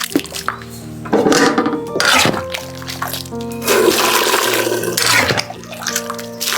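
Water running in several loud bursts, over background music with sustained notes.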